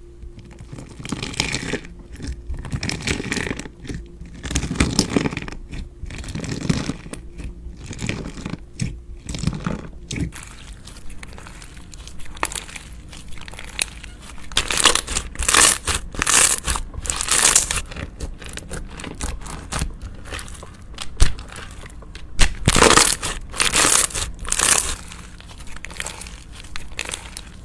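Slime being squished, pressed and stretched by hand, giving irregular crackling, crunching bursts. The bursts are loudest in two runs, one around the middle and one a little after.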